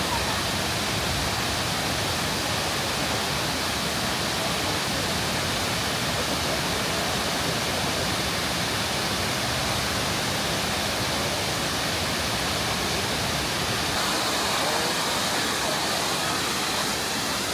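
Steady rushing roar of a large multi-tiered waterfall pouring over limestone cascades into pools, even and unbroken.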